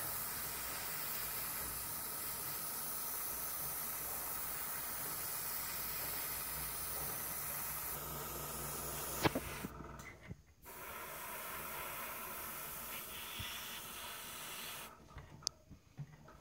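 Airbrush spraying a thin mist of white paint, a steady hiss of air. It breaks off for about a second around ten seconds in, starts again, and stops about fifteen seconds in, followed by a few light clicks.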